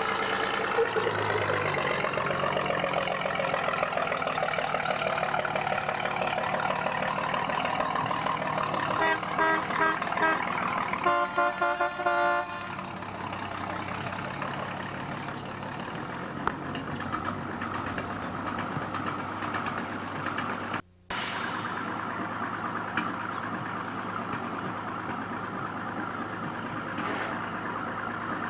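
A truck engine running steadily, with a rapid series of beeps for about three seconds starting some nine seconds in. The audio drops out for a moment about 21 seconds in.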